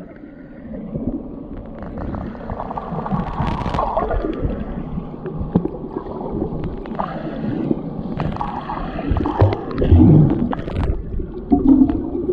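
Sea water heard through a submerged camera microphone: muffled gurgling and bubbling with scattered clicks and knocks as swimmers kick around it, louder about ten seconds in.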